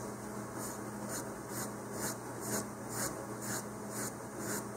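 Emery board rasping back and forth across the edge of a tiny rocket trim piece to bevel it, in short even strokes about two a second.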